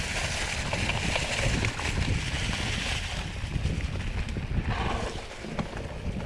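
Mountain bike rolling down a rough trail, with the tyres and frame rattling over the ground and wind buffeting the camera microphone.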